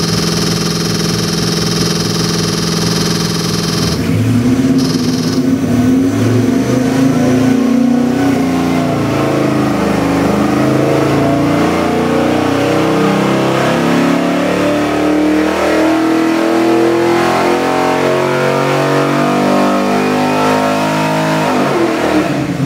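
427 cubic inch LS3 V8 on an engine dyno, idling for about four seconds, then opened up for a full-throttle pull under load, its note climbing steadily from about 900 to over 5,400 rpm. The throttle closes and the engine drops back right at the end.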